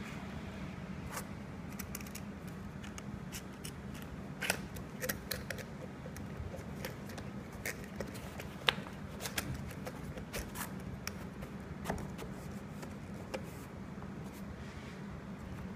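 Scattered small clicks, knocks and scrapes of a telescopic pole and plastic mounting bracket being handled and fitted into a foam-lined aluminium carrying case, the sharpest click a little past the middle, over a steady low hum.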